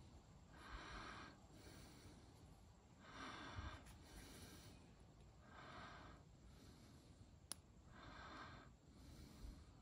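Faint, slow breathing close to the microphone: four soft breaths about two and a half seconds apart, with one faint click late on.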